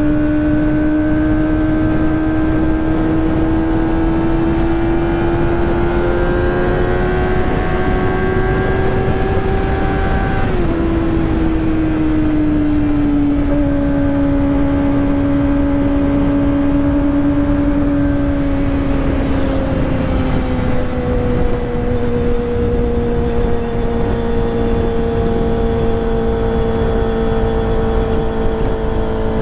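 Kawasaki ZX-25R's inline-four engine running at high revs through a ProSpeed Shark high-mount exhaust while riding. Its pitch climbs slowly for about ten seconds, drops sharply at a gear change, holds steady, then eases down a step about twenty seconds in, over a steady rush of wind and road noise.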